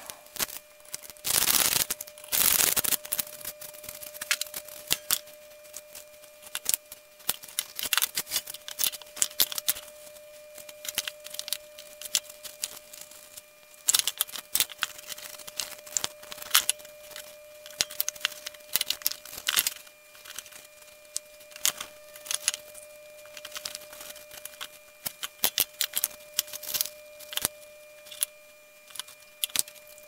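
Pallet-wood boards being handled on a wooden workbench: many light clacks and knocks as the pieces are picked up, fitted together and set down, with two louder bursts of noise near the start. A faint steady hum runs underneath.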